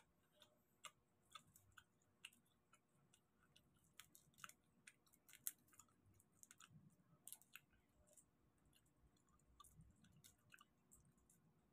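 Faint mukbang eating sounds: irregular small clicks and crackles as whole cooked garlic butter prawns are pulled apart and their shells peeled by hand, mixed with wet chewing.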